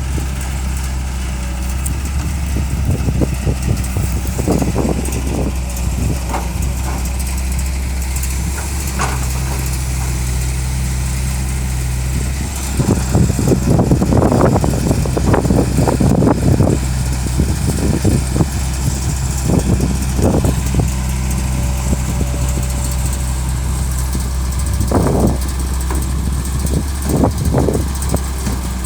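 Heavy diesel machinery running steadily, a constant low drone, while an excavator loads manure into a dump truck. Repeated bursts of rough crunching and thudding come as the loads land, loudest for several seconds about halfway through.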